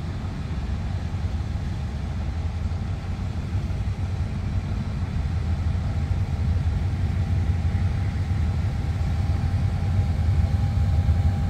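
GEK-class diesel-electric locomotive running close by with a steady low engine rumble that grows slightly louder, a faint thin whine joining in about halfway through.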